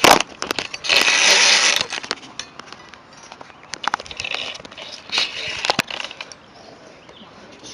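Handling noise from a hand-held camera: irregular clicks, knocks and rubbing on the microphone, with one louder rushing scrape about a second in.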